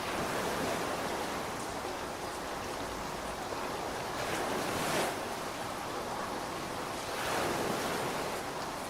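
Rain falling steadily as an even hiss, swelling briefly about five seconds in and again around seven seconds in.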